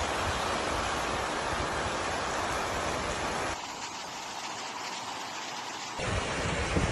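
Steady rushing storm noise outdoors, the even roar of wind and weather with a gusty low rumble. It drops suddenly about three and a half seconds in and comes back louder about six seconds in.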